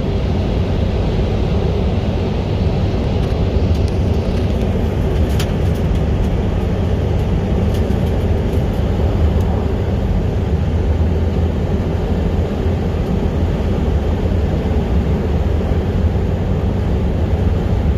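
Steady road and engine noise heard from inside the cabin of a moving vehicle: a loud, even low rumble.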